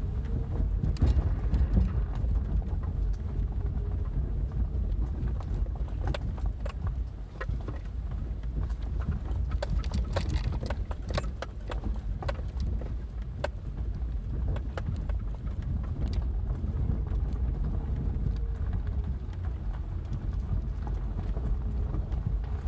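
Subaru rolling over a rough grass-and-gravel track, heard from inside the cabin: a steady low rumble of tyres and suspension with many irregular clicks and knocks from stones and gravel under the wheels, thickest about halfway through.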